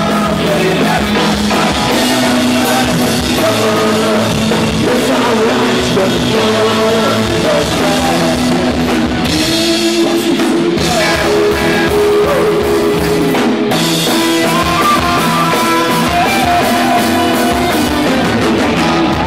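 Rock band playing live: electric guitars, bass and a drum kit at full volume, with a singer's voice over the top.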